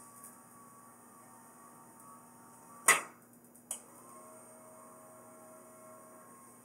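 Salvaged electric linear actuator's motor running with a faint steady whine under a 45-pound water-jug load. A sharp click comes about three seconds in and a fainter one just after; a new, lower tone then runs for about two seconds.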